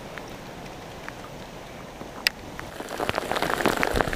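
Rain falling on a lake's surface, light at first, then heavy and dense from about three seconds in. A single sharp click sounds just past two seconds.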